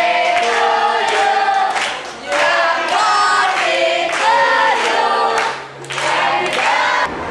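A group of students singing together in unison and clapping their hands along, in phrases broken by two short pauses.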